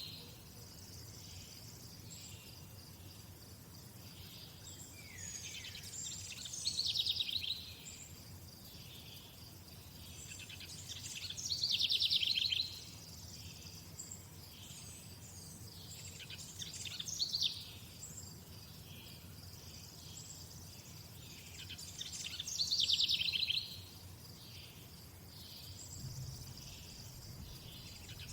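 A songbird repeating the same short, high, trilled song phrase about every five seconds, with faint regular chirping underneath.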